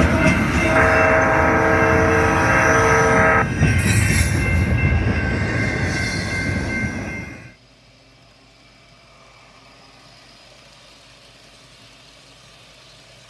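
A freight train, a BNSF diesel locomotive with double-stack container well cars, rolling past close by. The locomotive's air horn sounds a chord for about three seconds near the start. At about seven and a half seconds the sound cuts off abruptly to a faint steady hum.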